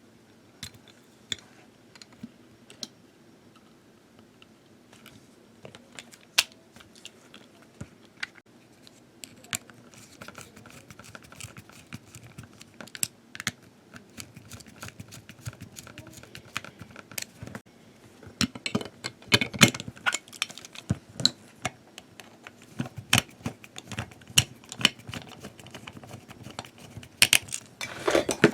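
Irregular light clicks and taps, sparse at first and growing busier and louder from about ten seconds in, like the small plastic and metal parts of a toy train being handled during repair.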